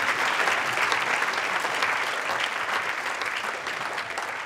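Audience applauding, a dense patter of hand claps that slowly fades.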